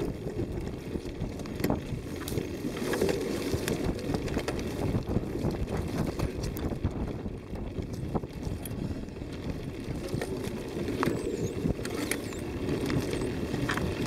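Dense low rumble of wind buffeting the microphone, broken by frequent small knocks and rattles from the jolting of a ride along a rough dirt trail.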